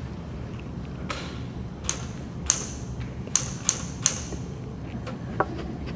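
Typewriter keys striking: about seven sharp clacks at an uneven pace, over a low steady background rumble.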